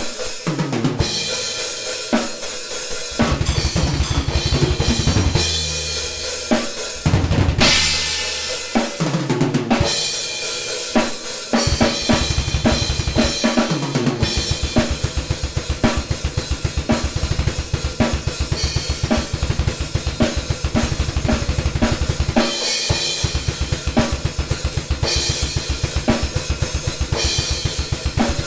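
Acoustic drum kit played hard: fast, near-continuous bass drum strokes under snare and cymbals, with cymbal crashes, broken by short pauses at about ten seconds and about twenty-two seconds in.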